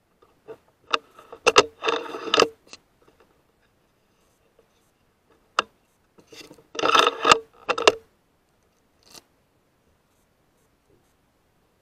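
A rifle's action being worked by hand, recorded through the scope-mounted camera: two runs of sharp metallic clicks with a scraping slide between them, about a second and a half each, then a lone click about nine seconds in.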